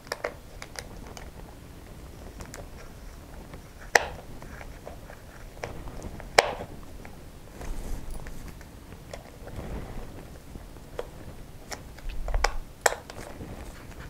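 Small precision screwdriver driving the mounting screws of a micro wing servo into its plastic servo frame: scattered light clicks and scrapes of the tool and fingers on the frame, with a few sharper clicks.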